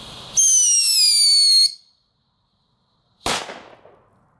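Firecracker fitted with a homemade whistle pre-burner: a shrill firework whistle lasting about a second, sliding slightly down in pitch, then a single sharp bang about a second and a half later as the firecracker goes off. The whistle burns only briefly.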